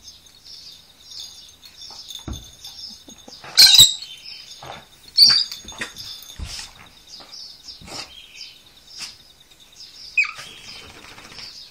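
Two dogs playing: three short, sharp high-pitched cries among light thumps and scuffling, with birds chirping steadily in the background.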